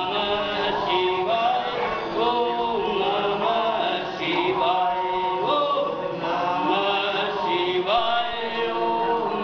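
Hindu devotional chant sung by a group of voices, a continuous melodic line.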